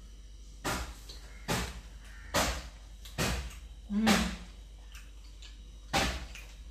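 Close-up eating sounds from a person chewing a mouthful of chapati and spicy prawn chukka: short noisy mouth sounds about once a second, with a brief hummed "mm" about four seconds in.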